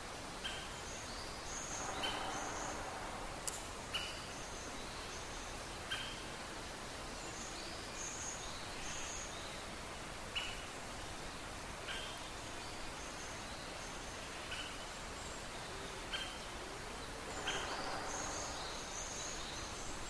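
Wild forest birds calling at dawn: a short, sharp call note repeats every second or two over scattered high chirps, with a steady hiss beneath.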